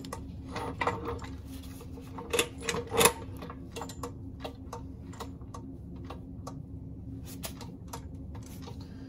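Hydraulic floor jack being pumped by hand to raise its saddle and wood block up against the oil pan: a run of short clicks and knocks, about two a second, with a louder knock about three seconds in. A steady low hum runs underneath.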